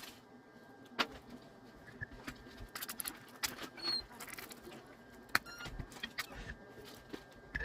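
Scattered light clicks and scrapes of a small hand tool working glass fragments off the back of an iPhone 12 Pro Max, over a faint steady high whine.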